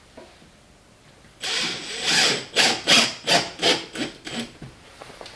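A run of rasping, scraping strokes, about three a second, starting loud and fading out after about three seconds.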